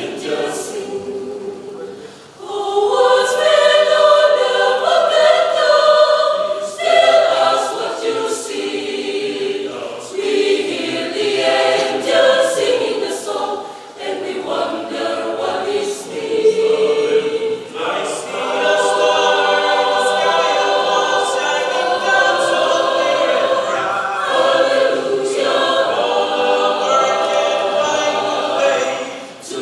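Mixed choir of men and women singing together, softer for the first couple of seconds and then at full voice, with short breaks between phrases.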